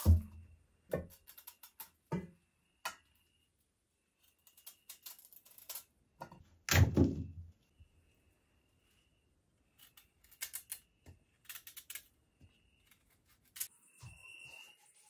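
Irregular knocks and clicks of things being handled, with one heavier, deeper thump about seven seconds in.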